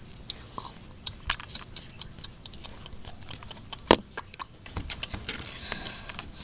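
Plush toys and bedding being handled and moved about: scattered rustles and soft clicks, with one sharp click about four seconds in.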